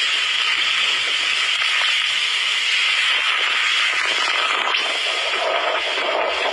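Typhoon wind and driving rain heard as a loud, steady harsh hiss.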